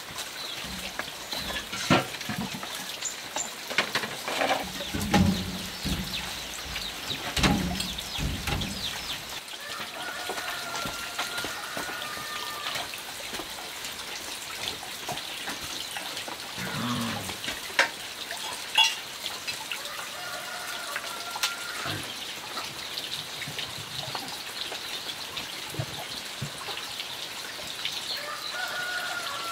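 Clinks and knocks of a knife and meat being handled in a metal cooking pot, with some dull thumps. A thin, high, drawn-out animal call comes three times, each lasting a second or two.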